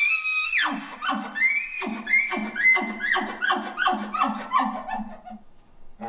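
A person imitating a bull elk's bugle with an elk call. A high whistle ends just after the start, then comes a fast run of about a dozen grunting chuckles, roughly three a second. Each is a falling note with a deep growl under it, and they fade out about five and a half seconds in.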